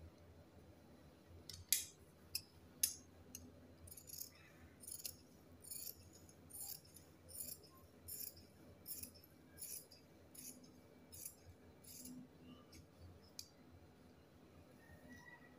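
Scissors snipping through fabric in a faint, regular run of cuts, about one snip every three-quarters of a second, starting a second or two in and stopping shortly before the end.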